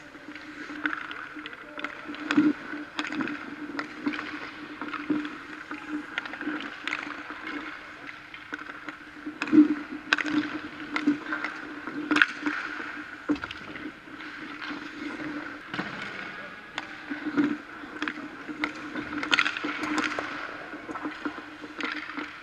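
Ice hockey goalie practice on the rink: skate blades scraping and carving the ice, with frequent sharp clacks of sticks and pucks and a few louder knocks, over a steady hum.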